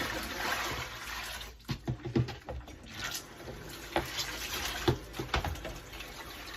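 Water running into a kitchen sink, stopping about a second and a half in, followed by several short splashes and knocks, the loudest about two, four and five seconds in, as wet laundry is handled in the sink.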